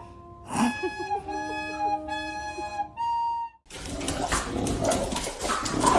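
A flute-like tune in steady held notes, then, after a sudden cut about three and a half seconds in, a dog whining and yelping over loud noisy background sound.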